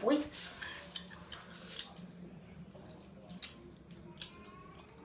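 Scattered small clicks and rubs of fingers handling the phone that is recording, close to its microphone.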